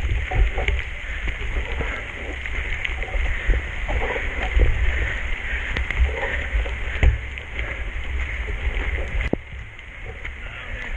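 Riding noise from a bicycle ridden in the rain: wind rumbling on the camera's microphone over a steady hiss, with scattered clicks and rattles. It turns quieter suddenly about nine seconds in.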